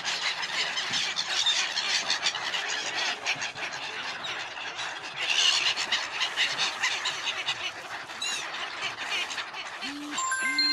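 A large flock of wintering birds calling all at once: a dense, continuous din of shrill, overlapping calls. Near the end come two short, low tones.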